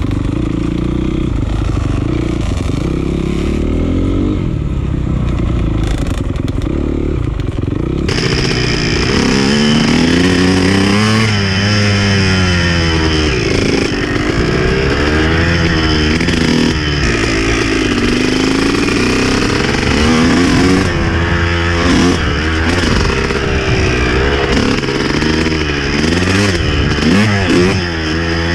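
Dirt bike engine heard on board while riding a trail, its pitch rising and falling over and over as the throttle is opened and closed through the turns. The engine sound changes abruptly about eight seconds in.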